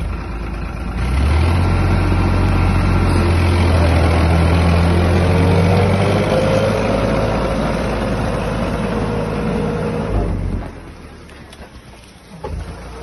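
Tractor engine working hard under load, hauling a loaded maize silage trolley bogged in mud, its pitch rising slowly. A little after ten seconds in the engine drops back sharply to a quieter note, then picks up again near the end.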